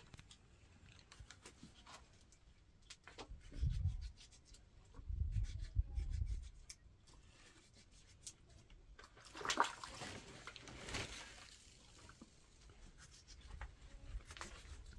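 Faint wet cuts and small clicks of a kitchen knife slicing fresh tomatoes over a pan. There are low rumbles about four and six seconds in, and a brief louder rustle about ten seconds in.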